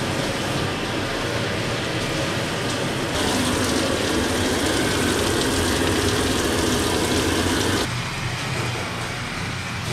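Water spraying from a handheld hose sprayer onto a wet dog in a stainless-steel wash tub, a steady hiss that grows louder about three seconds in and drops back shortly before the end.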